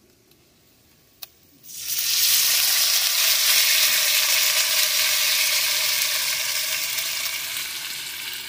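Tomato sauce poured into a hot pan of freshly fried sausage and bacon, sizzling loudly as it hits the hot fat. The sizzle starts suddenly a little under two seconds in, after a single light click, and slowly dies down.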